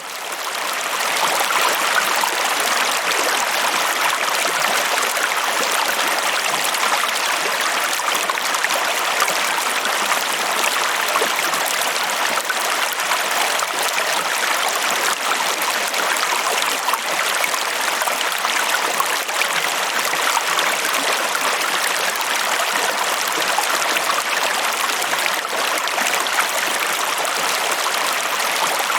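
Steady flowing water of a stream running over rocks, a continuous rushing and trickling that fades in during the first second.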